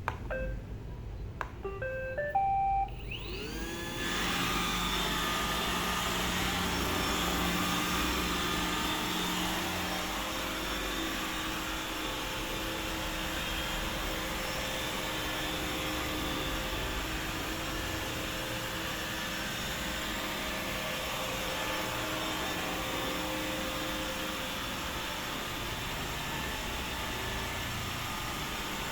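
iRobot Roomba 870 robot vacuum starting up. It plays a short run of electronic beeps at different pitches, its motors spin up with a rising whine about three to four seconds in, and it then runs with a steady whir of the vacuum motor and brushes.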